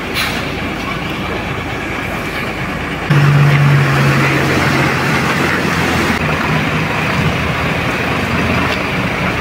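Heavy goods truck's diesel engine running as the truck manoeuvres, with a louder, higher engine note from about three seconds in that eases off after a few seconds.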